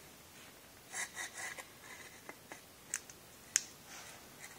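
Faint scraping of metal parts about a second in, then two sharp clicks, as a new greased bearing cup is worked into a Ross steering gear housing by hand and seats.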